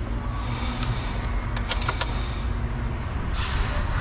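A few light metallic clicks from a small hand wrench working a steering-column fastener, bunched about a second in, over a steady low background rumble.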